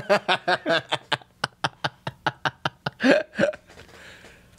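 A person laughing: a long run of quick, even laugh pulses, about five a second, with two louder ones about three seconds in, then trailing off to breathing.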